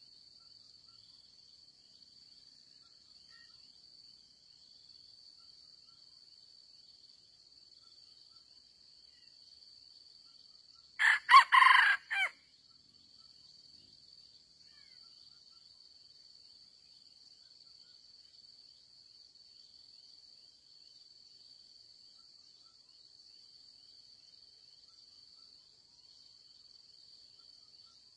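A red junglefowl rooster crows once about eleven seconds in: a short, loud crow of just over a second in a few quick parts. A steady, faint, high insect drone runs behind it.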